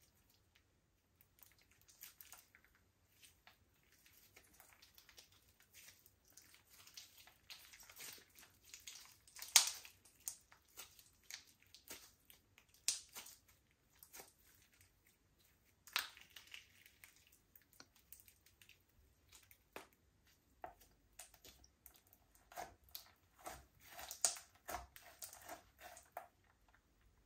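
Slime being squished and kneaded by hand, giving irregular sticky pops and crackles, with a few louder pops.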